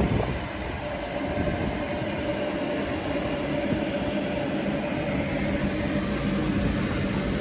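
Steady mechanical hum with a constant mid-pitched whine over a low rumble.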